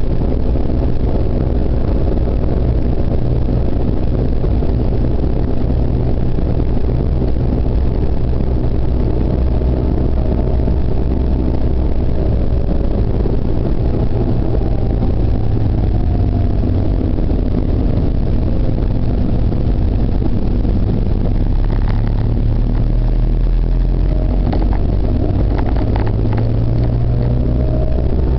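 Car engine and tyre noise heard from inside the cabin while driving, a steady low drone whose engine note dips and rises a little as the speed changes. A few light clicks come in the last third.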